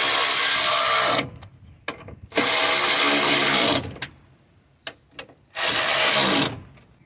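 A power tool driving in the 10 mm water pump bolts in three short runs, each with a steady motor whine and each a second or so long. Quiet gaps fall between the runs.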